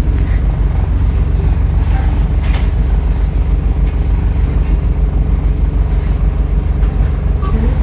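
Go-Ahead London bus SEN52's engine and drivetrain running under way, heard from a passenger seat inside the saloon: a steady low drone with a few light rattles from the interior.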